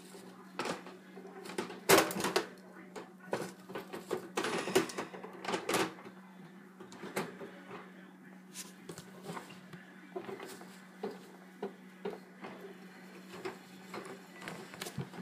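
Hands working at a wire hamster cage, fitting a clip-on chew accessory inside: irregular clicks and rattles of metal bars and plastic, busiest in the first six seconds with the loudest clatter about two seconds in. A low steady hum sits underneath.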